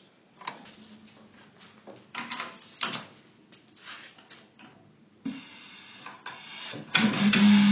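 Scattered knocks and clicks of handling, then a steady hiss of compressed air begins about five seconds in. Near the end it gives way to a much louder sound with a strong hum that shifts in pitch, as the converted lawnmower engine starts running on air.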